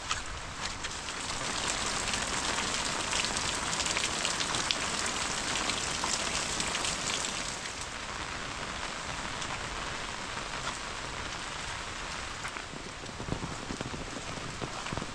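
Rain falling steadily, with many separate drop hits heard against a constant hiss. It is a little heavier in the first half.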